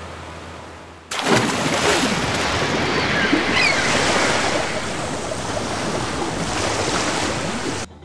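Music fading out, then the rush of ocean waves and surf coming in abruptly about a second in and cutting off suddenly near the end, with a few faint high calls partway through.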